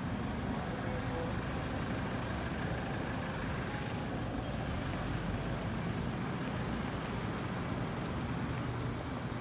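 City street traffic dominated by the steady low rumble of a heavy road vehicle's engine, with a brief high whistle near the end.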